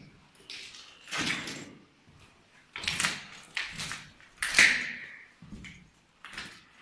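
A run of about six scrapes and knocks, the loudest about four and a half seconds in, with a short squeak.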